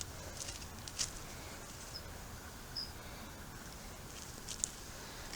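Quiet background with a few faint ticks and light rustles, and two tiny high chirps about two and three seconds in.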